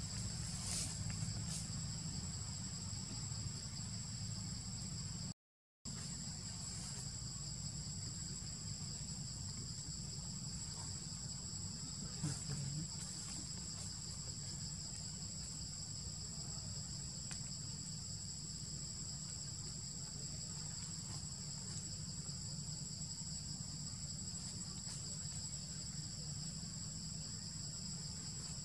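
Steady, high-pitched drone of forest insects, two constant tones held throughout, over a low rumble. The sound cuts out for about half a second some five seconds in.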